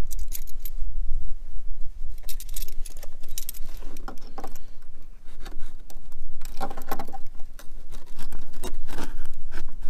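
Small vise grips clinking and rattling against a steel brake line retaining clip and its bracket as the clip is worked back and forth: irregular metallic clicks over a steady low hum.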